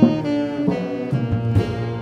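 Small jazz band playing a Macedonian traditional song: a sustained alto saxophone melody over double bass, with drums struck with soft mallets.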